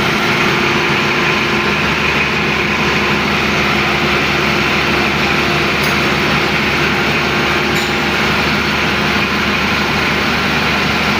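Engine of a Bidwell concrete paving and finishing machine running at a steady speed, an even drone with no change in pitch. Two faint ticks come about six and eight seconds in.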